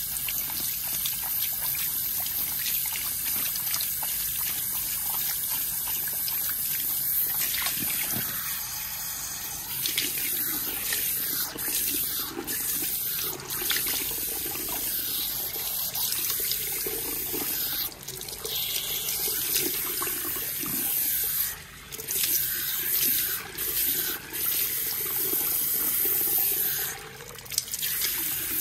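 Handheld salon shower head spraying water onto wet hair and into a shampoo basin as the hair is rinsed by hand: a steady hiss of spray that dips briefly a few times in the second half.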